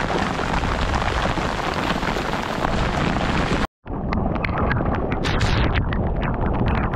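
Heavy rain pouring down in a thunderstorm, a dense hiss; after a sudden cut about halfway through, individual raindrop hits stand out sharply.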